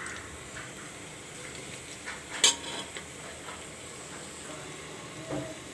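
Sliced onions sizzling gently in oil in an aluminium pressure cooker, just beginning to brown. A spoon stirs and scrapes against the pot now and then, with the sharpest knock about two and a half seconds in.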